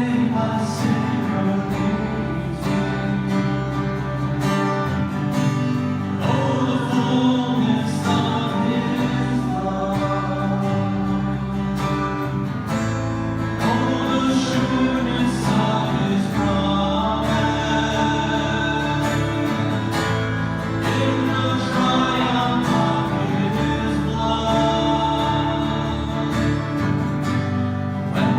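Worship music: singing over strummed acoustic guitar.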